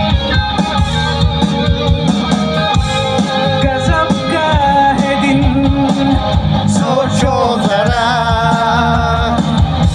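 Live band playing amplified, with guitars, drums and a singer's voice, heard loud from the audience.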